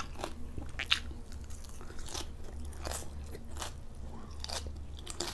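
Close-miked chewing of raw julienned carrot with salmon sashimi: crisp crunches at irregular intervals, roughly one a second, over a steady low hum.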